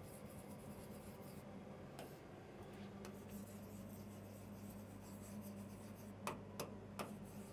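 Marker pen writing faintly on a whiteboard as words are handwritten, with a few short clicks near the end.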